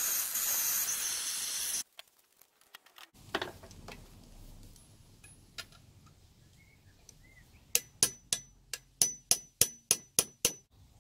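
Handheld propane blowtorch hissing steadily, then shut off about two seconds in. Later comes a quick run of about a dozen light metallic taps with a high ringing ping: a metal rod tapping a bearing down into its bore in the warmed aluminium crankcase.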